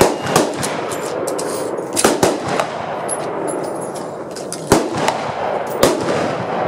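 Rifle gunfire on a shooting range: several sharp cracks with ringing echoes, a pair near the start, another pair about two seconds in, and two more later, over a steady background hiss.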